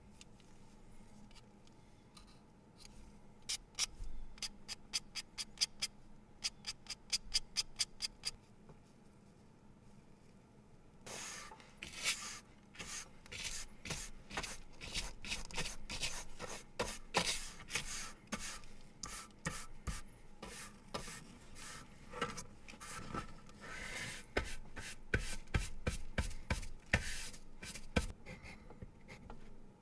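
A pencil being sharpened. First comes a quick run of even clicks, about four a second, then, about eleven seconds in, a long stretch of rapid, dense scraping strokes as the wood and lead are shaved.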